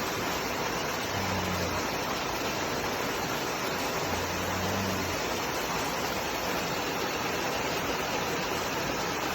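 Steady rush of flowing river water, an even unbroken hiss.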